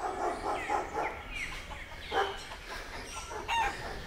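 Chickens clucking, with many short chirping calls.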